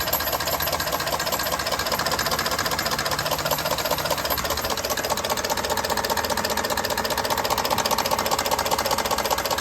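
2019 Ford F-150's 5.0-litre V8 running with a steady, rapid knock. New timing components, cam phasers, actuators and solenoids have not cured the knock, and its cause is still unknown.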